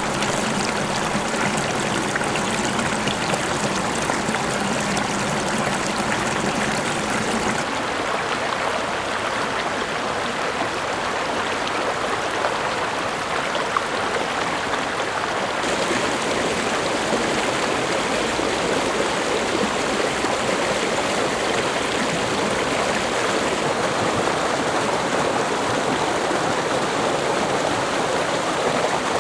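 Waterfall: a steady rush of falling water. Its tone shifts abruptly twice, about a quarter and about halfway through, as one waterfall recording gives way to another.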